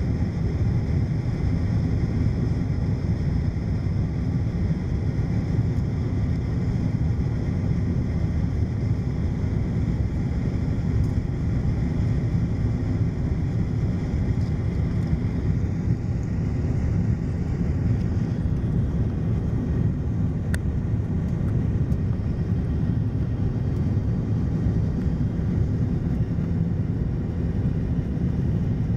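Steady in-cabin rumble of an Airbus A330-300 on approach, with engine and airflow noise heard from a seat over the wing with the flaps extended. A faint high whine in the background changes about two-thirds of the way through.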